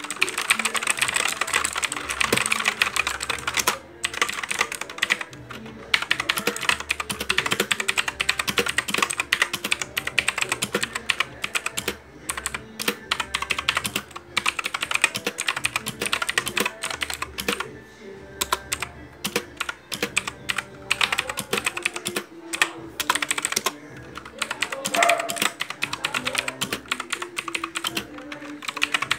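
Fortrek mechanical keyboard being typed on fast: dense runs of clacking keystrokes broken by short pauses every few seconds.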